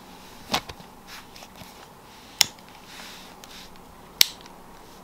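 Three short, sharp clicks as a Canon DSLR and its lens are handled, spaced a little under two seconds apart, the last two the loudest.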